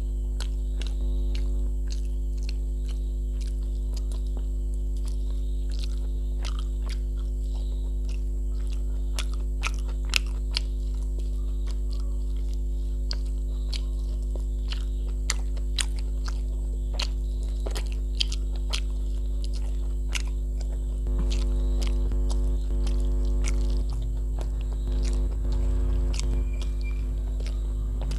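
Close, wet chewing and lip-smacking of a person eating rice and curry by hand, with many short sharp mouth clicks, over a steady electrical mains hum.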